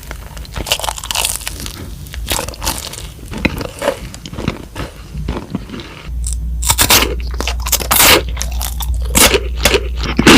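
Close-up eating sounds: crunchy bites and chewing of crisp food, a quick run of sharp crunches that get louder about six seconds in.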